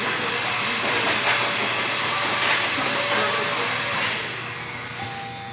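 Loud rushing hiss of blown air from a blow dryer, the kind barbers use to clear cut hair from a fade. It fades away about four seconds in.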